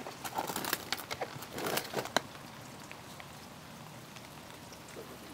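Snap-on lid of a plastic bucket being pried open: a run of plastic clicks and rustles over the first two seconds, ending in one sharp snap, followed by a few faint ticks.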